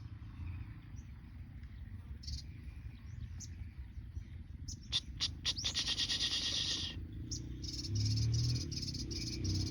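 Sunbirds calling: scattered high, thin chirps, then a fast buzzy trill of about two seconds about halfway through, and a run of evenly repeated high notes near the end, over a low rumble.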